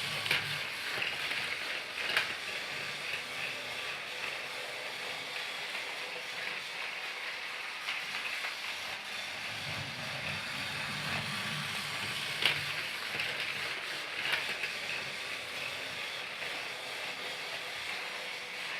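Motorized Thomas the Tank Engine toy train running steadily, its small motor and gears whirring, with a few sharp clicks along the way.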